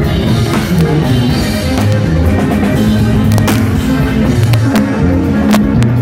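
Live band music, loud and close: drum kit beats over a low, changing tuba bass line.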